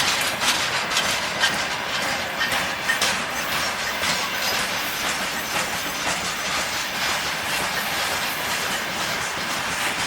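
Freight train wagons rolling past, their wheels clacking and knocking over the rail joints, with a run of sharp knocks in the first three or four seconds and then steady running noise. The filmer takes the knocking for something loose or faulty in the wagons' wheels.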